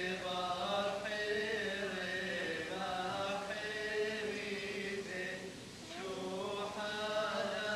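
Slow group chanting of a church funeral liturgy, several voices singing in long held lines.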